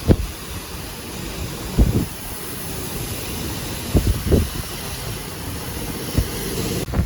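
Tropical-storm wind from a Category 1 hurricane buffeting the microphone: a steady rushing hiss with low rumbling gusts, the strongest about two seconds in and about four seconds in.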